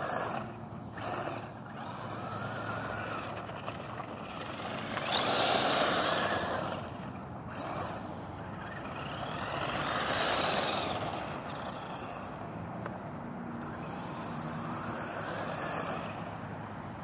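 Electric RC car's motor whining as the car drives over snow on screw-studded tyres. The whine rises and falls in pitch and swells twice, about five and ten seconds in, as the car speeds up and slows.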